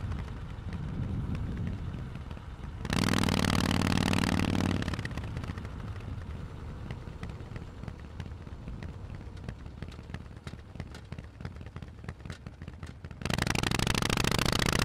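Harley-Davidson Forty-Eight's 1200 cc air-cooled V-twin through a Vance & Hines exhaust, ridden on the road. The throttle opens for a loud burst about three seconds in. The engine then drops off and coasts for several seconds with an uneven crackle, and the throttle opens sharply again near the end.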